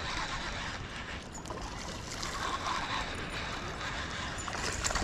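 A small largemouth bass splashing at the water's surface near the end as it is reeled in to the bank, over a steady rushing outdoor background.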